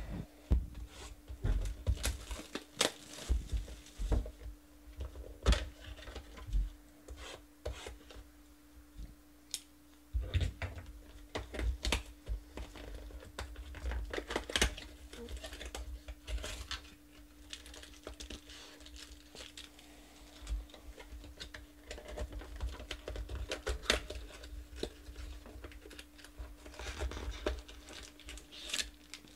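Cardboard and plastic wrap being torn and crinkled by hand as a Topps Finest football card box and its wrapped mini boxes are opened: a string of sharp, irregular tearing and rustling sounds, with a short lull about nine seconds in.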